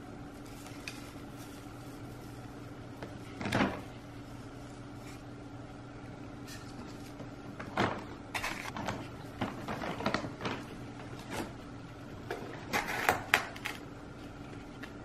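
Handling noises as a terracotta pot with a repotted orchid is moved about on a table: a single knock, then scattered clunks and rustles, the loudest bunch near the end, over a steady electrical hum.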